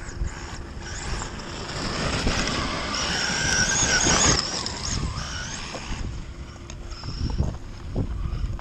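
Brushless electric motor of a Traxxas E-Maxx RC monster truck (EZRun 2200 kV on 6S) whining as the truck drives close past, its tyres crunching and throwing gravel. It is loudest about three to four seconds in, then fades as the truck moves away. Wind rumbles on the microphone throughout.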